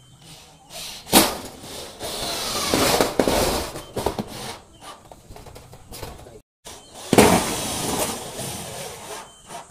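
Cordless drill driving screws into corrugated metal roof sheeting, twice. Each starts with a sharp loud bite, then a grinding whine as the screw cuts through the metal: the first lasts about three seconds, the second a little under two.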